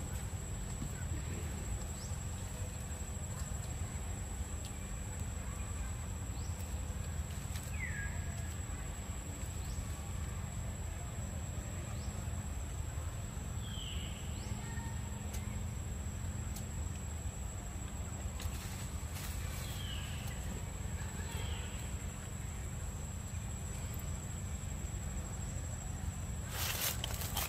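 Forest ambience: a steady high insect drone over a low rumble, with a few short descending bird chirps scattered through and a brief burst of noise near the end.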